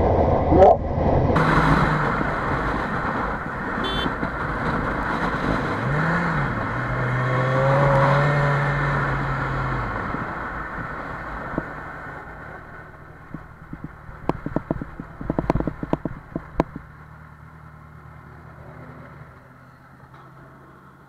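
Motorcycle riding at freeway speed, wind rush and engine noise, fading as the bike slows and pulls onto the shoulder. A run of sharp knocks comes partway through, then a quieter steady engine hum.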